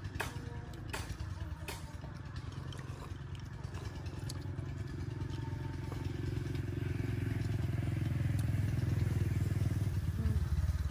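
A small engine running and growing steadily louder from about four seconds in, strongest near the end, as a motor vehicle draws near. A few light clicks of chopsticks against porcelain bowls in the first two seconds.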